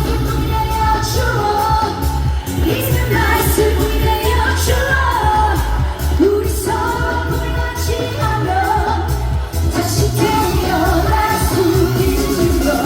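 A woman sings a trot song live over a backing track with a steady bass beat, through a PA system.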